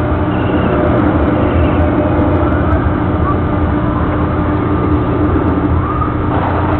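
Spinning amusement ride running: a steady mechanical drone with a constant hum as its cars sweep around.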